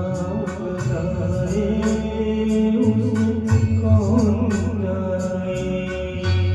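A man singing a slow Hindi film-style song with vibrato, over a backing track with a steady bass line and light rhythmic percussion.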